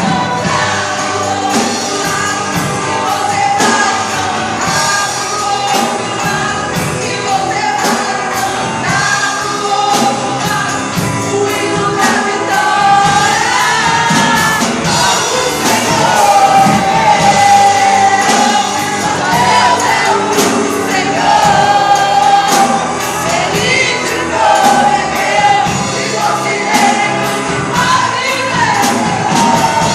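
Live Christian praise music: a group of voices singing together with a band over a steady beat.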